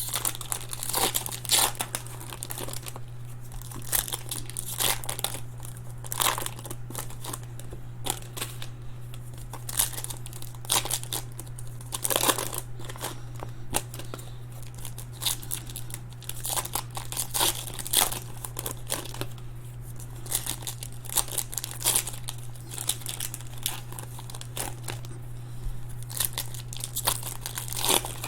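Trading card pack wrappers crinkling and tearing as packs are opened and handled, in many short crackles. A steady low hum runs underneath.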